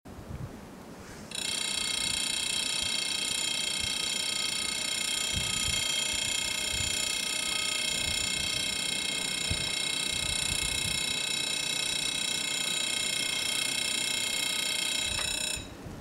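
Warning bells of a French level crossing ringing as one continuous, steady, high ringing tone, warning that a train is approaching. They start about a second in and stop shortly before the end.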